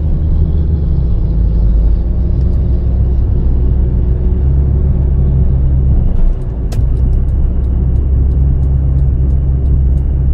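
Proton Gen2 running, a loud steady low rumble with a faint, steady high-pitched tone above it: the whistle whose source the owner cannot trace. From about two-thirds in, a regular light ticking comes in, about three ticks a second.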